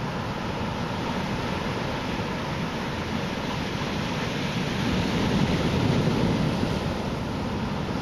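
Typhoon swell breaking on the beach and washing up the shore in a steady rush of surf, swelling louder for a second or two just past the middle.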